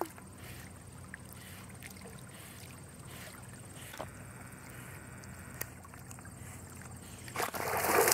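Faint water lapping as a Siberian husky swims with a stick in its mouth, then, about seven seconds in, loud splashing as the dog wades out of the lake onto the rocks.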